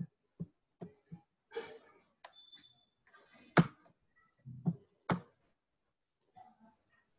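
Scattered quiet clicks and soft knocks at a computer desk, as a mouse is clicked and handled while browsing; two sharper clicks, about three and a half and five seconds in, are the loudest.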